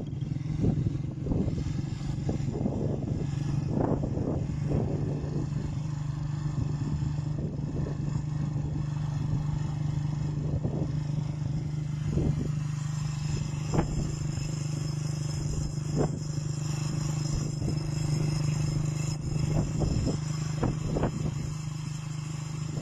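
Vehicle engine drone with road rumble and occasional knocks and rattles, recorded on a phone riding in the moving vehicle over a rough dirt road.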